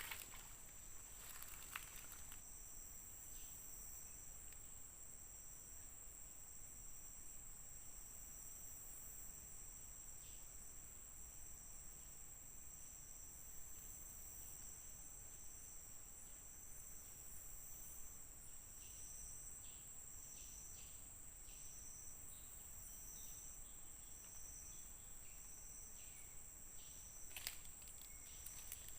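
Forest insects calling: a steady high-pitched drone, with a second insect pulsing just below it about once a second. Faint scattered ticks and rustles come through, more of them near the end.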